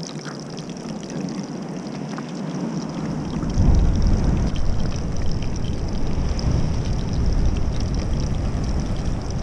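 Two pejerrey frying in oil in a pan over a wood fire, a steady sizzle. About three and a half seconds in, a loud low rumble joins and stays the loudest sound.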